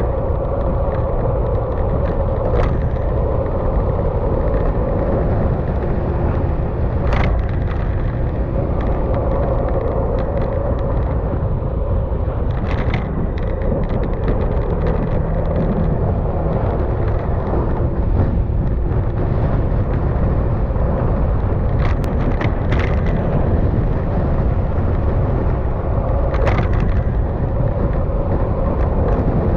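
Yamaha XMAX scooter's single-cylinder engine running at a steady cruise under a dense low rumble of wind and road noise. A steady engine hum sits in the middle, and a few brief knocks come now and then.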